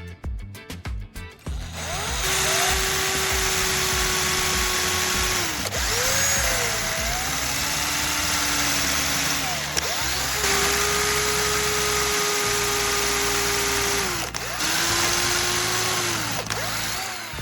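Electric drill boring holes into a wooden cylinder: its motor whine holds steady, then sags and picks up again several times as it drills in spurts, starting about two seconds in and stopping near the end. Background music with a steady beat plays throughout.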